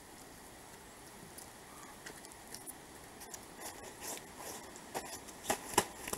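Rustling, footsteps and light knocks of a person moving about and handling a large fabric bag. They grow busier from about two seconds in, and two sharp knocks near the end are the loudest sounds.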